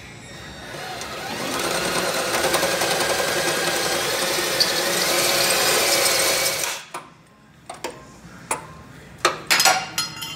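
Cordless power tool spinning a bolt in a car's engine bay: a steady motor whine that builds up, rises slightly in pitch and cuts off suddenly, followed by a few sharp metal clanks from a hand wrench near the end.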